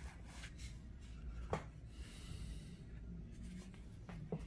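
Cardboard baseball cards handled in the hands: a light click, a soft brushing slide as a card is moved off the front of the stack, and another small click.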